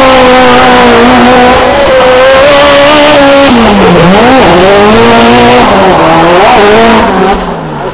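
Toyota AE86's 2AZ-FE-swapped inline-four engine held at high revs through a drift, with tyre squeal over it. About halfway through the revs dip and bounce up and down, and near the end the sound falls quieter as the car pulls away.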